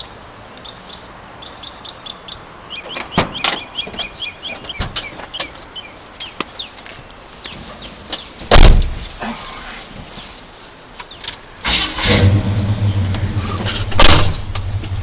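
Birds chirp in the background, then the truck's door shuts with a thud about eight and a half seconds in. Near the end the 1977 Chevrolet C10's factory 454 big-block V8 starts and runs, with a loud burst about two seconds after it catches.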